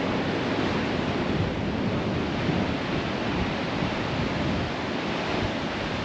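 Ocean surf breaking and washing ashore, a steady rush of noise, with gusty wind buffeting the microphone.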